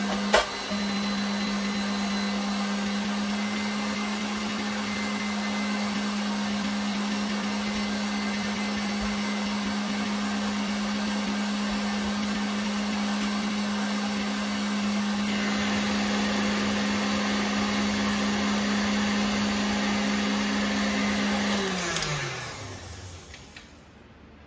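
Electric stand mixer motor running steadily at speed, its whirr slightly louder from about halfway. Near the end it is switched off and winds down to a stop, its hum falling in pitch.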